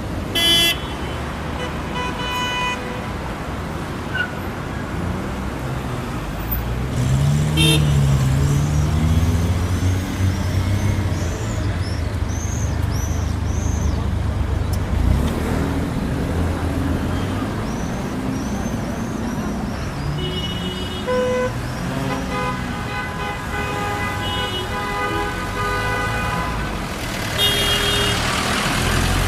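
Road traffic: a steady rumble of vehicles, one engine revving up around eight seconds in, with car horns honking briefly near the start and several times over the last third.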